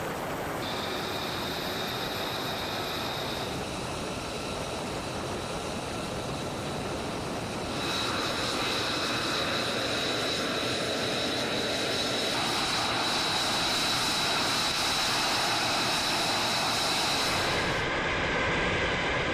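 Jet engine running steadily: a constant high whine over a rushing noise, which grows louder about eight seconds in.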